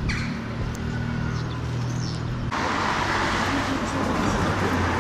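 Street traffic noise: a vehicle engine running with a steady low hum, turning abruptly into louder, even road noise about halfway through.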